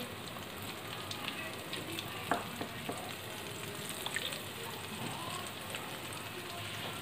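Flour-and-egg-coated chicken wings deep-frying in hot oil: a steady sizzle with scattered pops and crackles, and one louder click a little over two seconds in.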